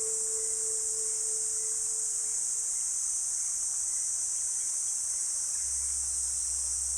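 A steady, high-pitched chorus of insects. A ringing bell-like tone fades out during the first three seconds, and a low hum comes in near the end.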